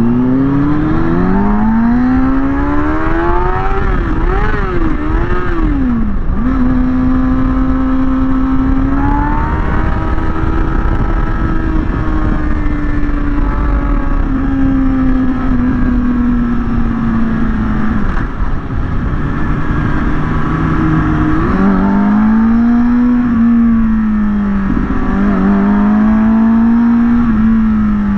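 Kawasaki ZX-6R's inline-four engine at speed, revving up in several quick climbs and drops in the first six seconds as it shifts up, then holding a steady note that slowly sinks, before rising and falling again near the end. Heavy wind rush on the microphone underneath.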